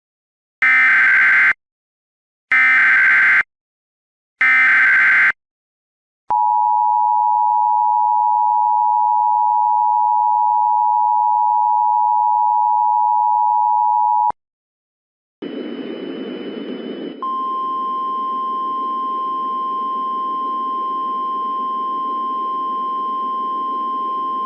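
Emergency Alert System tones: three short bursts of screeching SAME header data, then the two-tone attention signal held steady for about eight seconds and cut off abruptly. After about a second's gap a static hiss comes in, and a single steady tone joins it about two seconds later.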